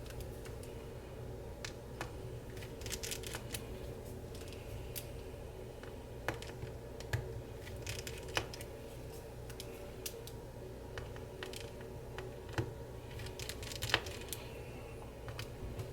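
Scattered light clicks and scrapes of a precision screwdriver and small tools working out the tiny antenna screws on a MacBook Pro A2338, with a few sharper ticks, over a steady low hum.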